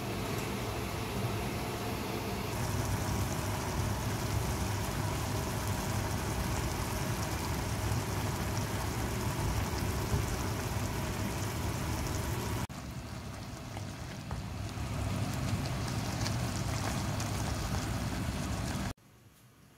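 Sliced beef and onions sizzling in sauce in a frying pan as a wooden spoon stirs them, over a steady low hum. The level drops suddenly about two-thirds of the way through, and the sound cuts off abruptly near the end.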